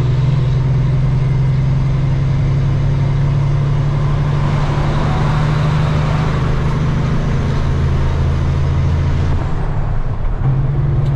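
Semi-truck's diesel engine and exhaust pipes under steady load on the highway, a loud steady drone heard from inside the cab with road noise over it. About ten seconds in the drone drops away briefly and then picks up again.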